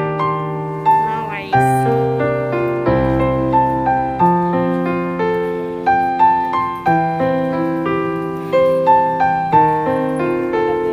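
Background piano music: notes and chords struck every half second or so and left to ring.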